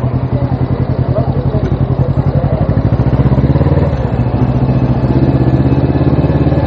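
Suzuki GS500's parallel-twin engine running steadily under a rider, with an even pulsing beat. Its pitch rises a little about three seconds in and dips briefly near four seconds.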